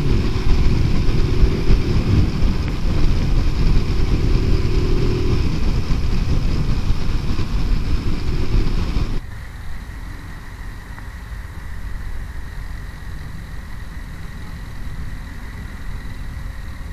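Motorcycle riding at speed, with wind buffeting the rider's microphone over the engine. About nine seconds in, the noise drops suddenly to a quieter, steady engine and road sound.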